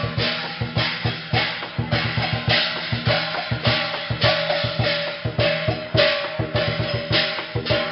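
Lion dance percussion: a drum beating fast and steadily, with cymbal crashes about twice a second over a ringing metallic tone.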